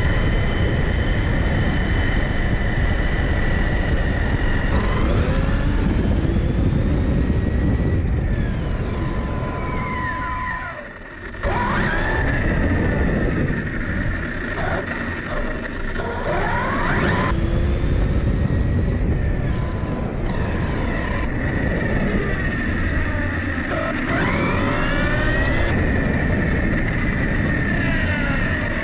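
Arrma Kraton 6S RC car's brushless electric motor and drivetrain whining, heard from a camera mounted on the car, over a rush of wind and tyre noise. The whine holds a steady pitch at first while the car cruises, then rises and falls again and again as it accelerates and slows, with a brief drop about a third of the way in.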